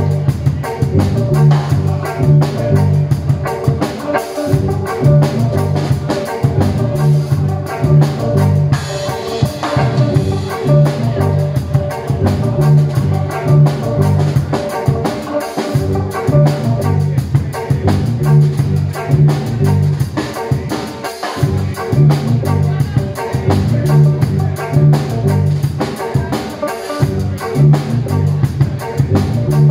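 Drum kit and electric guitar playing live instrumental music: a repeating low riff under a steady, busy beat of drum and cymbal hits, with a cymbal wash about nine seconds in.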